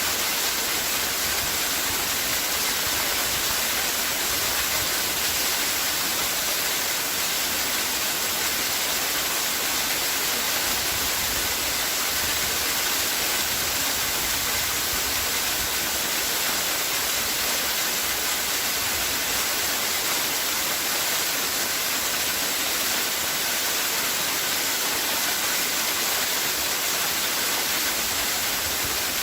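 Waterfall: a steady, unbroken rush of falling water, strongest in its hiss.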